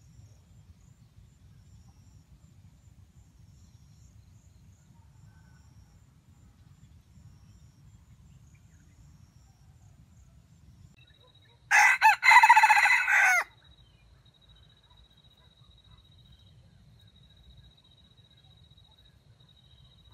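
A red junglefowl rooster crows once, about two-thirds of the way in, for under two seconds. The crow has a stuttering catch: a short first note breaks off before the main call.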